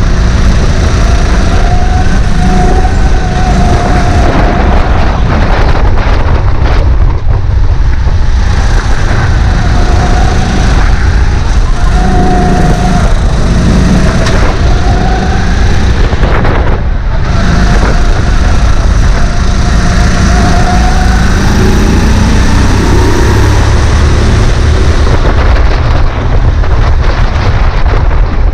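Single-cylinder four-stroke 270 cc engine of a Sodikart RX7 rental kart heard on board at racing speed, its pitch rising and falling over and over as it accelerates and lifts through the corners, over a heavy low rumble.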